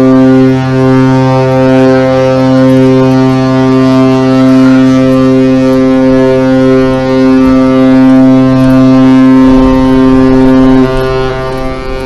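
A ship's horn sounding one long, steady, deep blast full of overtones, dropping away sharply about eleven seconds in; a low rumble joins it near the end.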